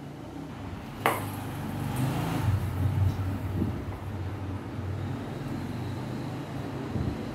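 A ping-pong ball struck once by a rubber paddle, a single sharp tap about a second in, with a couple of much fainter taps later, over a steady low rumble.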